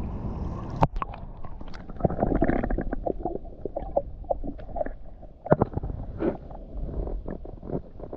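Muffled underwater sound from a camera held under shallow creek water: a low rumbling slosh with many scattered clicks and knocks.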